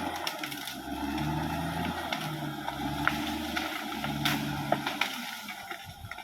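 Caterpillar D6R XL bulldozer's diesel engine working, its note swelling and easing under changing load, with scattered sharp clanks and cracks.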